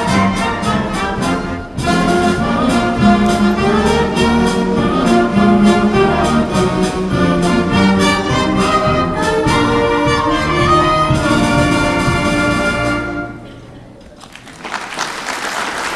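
High school concert band with woodwinds and brass playing a piece to its final chord, which stops about thirteen seconds in. After a brief hush the audience starts applauding near the end.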